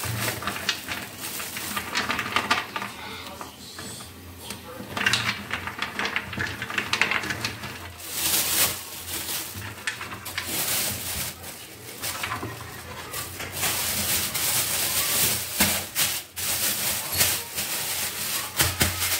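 Thin plastic bags rustling and crinkling while handfuls of small frozen mantı dumplings are scooped into them off a metal tray, the hard frozen dumplings clicking and rattling against the tray and each other.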